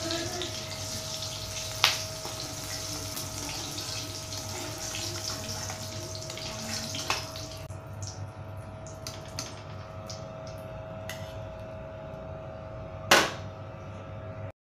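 Green chillies sizzling in hot oil in a steel kadhai, with a few light clicks of the perforated spoon against the pan. The sizzling drops away about eight seconds in as the chillies are lifted out, and a single sharp metal clink comes near the end.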